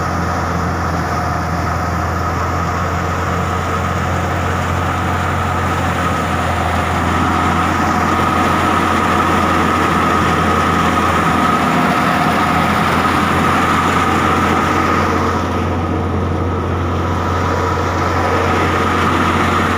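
Tractor-driven wheat thresher running under load, powered by an NH Dabung 85 tractor: a steady low drone with a high whine above it, a little louder from about seven seconds in.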